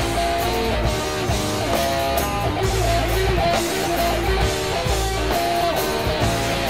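Background music led by guitar, with a bending melodic line over a steady bass.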